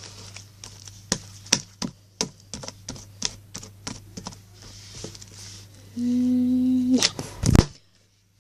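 Slime being squeezed and worked by hand, giving irregular sharp clicks and pops. About six seconds in comes a held vocal "no", then a few loud knocks as the filming iPad is bumped, and the sound cuts out briefly.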